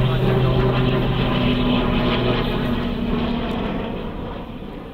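CASA C-295M's two Pratt & Whitney Canada PW127G turboprop engines and propellers in a fly-past, a loud steady low propeller drone. The drone's low tone drops away about halfway through and the whole sound fades over the last two seconds.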